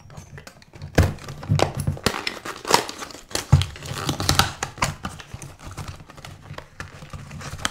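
Cardboard box and packaging being opened and handled: irregular crinkling and rustling, with a few louder knocks, the strongest about one and three and a half seconds in.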